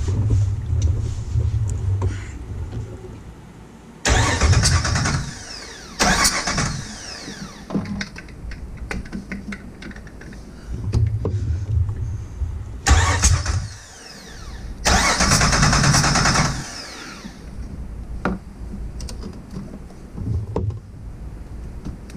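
Starter cranking the Jeep Wrangler TJ's 4.0-litre inline-six in several short spells for a compression test, the engine turning over without firing. Loud hissing bursts come between the spells of cranking.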